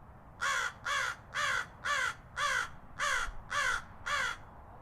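A harsh animal call, eight times in an even series of about two calls a second.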